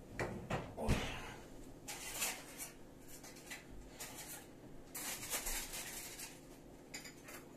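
Kitchen handling noises: a few sharp knocks and clatters, then short scraping and rustling sounds on and off.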